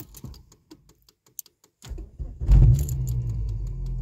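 A few small clicks as the ignition key is turned, then a Volvo 850's five-cylinder engine cranks briefly and starts about two seconds in, surging once and settling into a steady idle: the immobilizer has accepted the newly programmed key.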